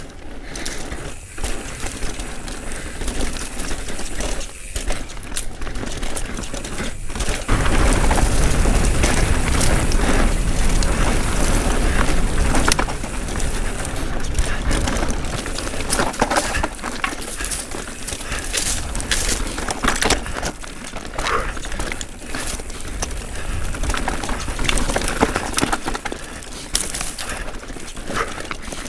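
YT Jeffsy 29 full-suspension mountain bike riding fast down a dirt singletrack: tyres on dirt, wind rushing over the camera microphone, and frequent knocks and rattles from the bike over bumps. The wind rumble is loudest for several seconds in the middle.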